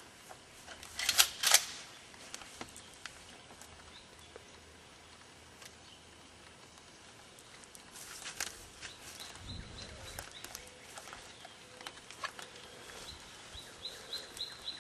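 Footsteps and rustling through dry grass and brush, mostly faint, with a couple of louder crunches about a second in.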